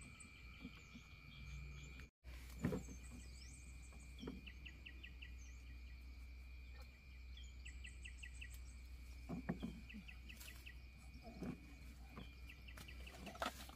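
Quiet rural ambience: a steady, high insect drone with a few short runs of quick bird chirps, and a handful of soft thuds.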